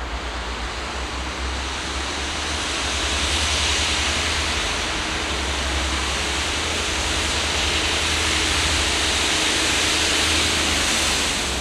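Network Rail Windhoff multi-purpose vehicles working as a railhead treatment train, their high-pressure water jets hissing steadily as they blast leaf contamination off the rails, over a low engine rumble. The hiss swells about two seconds in as the train draws closer.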